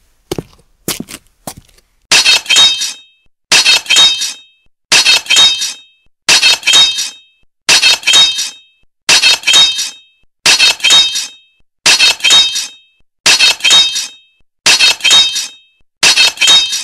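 A few short sharp knocks, then from about two seconds in the same clashing strike sound effect repeated at even spacing about every second and a half. Each is a quick cluster of two or three hard hits with a bright ringing tone, like sword blades clashing.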